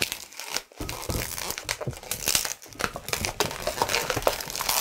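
Long latex twisting balloon being pinch-twisted by hand: the rubber rubs and creaks against itself and the fingers in a quick run of small, irregular crackles.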